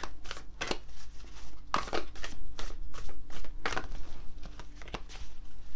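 A deck of large, thick-stock tarot cards being shuffled by hand: an irregular run of quick card slaps and swishes.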